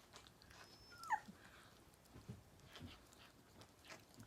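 A toy poodle puppy gives one short, faint whine that falls in pitch about a second in, among faint scattered clicks of small dogs eating from their bowls.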